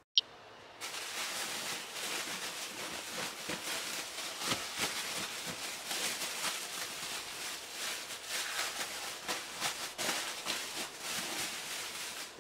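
Thin plastic bag crinkling and rustling as it is peeled off a bowl of risen yeast dough, with a sharp click just at the start.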